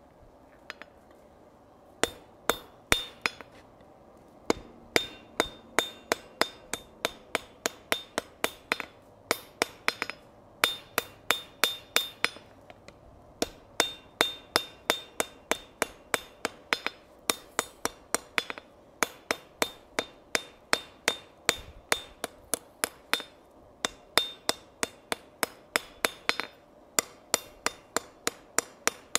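Hand hammer striking a red-hot steel tong blank on an anvil face, about three blows a second in runs with short pauses, each blow leaving a bright ring from the anvil. The smith is hammering the twist out of the second half of a precut tong blank and flattening it.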